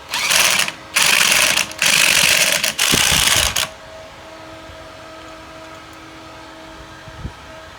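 Pneumatic impact wrench run in four short bursts, one right after another, then stopping about three and a half seconds in.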